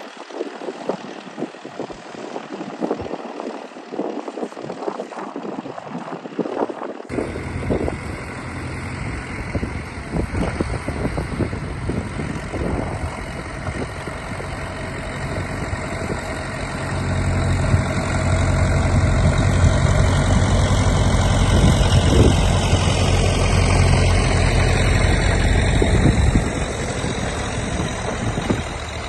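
International B-275 tractor engine running. Its low rumble cuts in suddenly about a quarter of the way in, and it gets louder past the middle as the engine comes closer or works harder.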